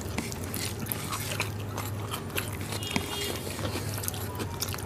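Eating by hand: fingers squishing and mixing rice with mutton curry on plates, along with chewing, heard as a run of small wet clicks and smacks over a low steady hum.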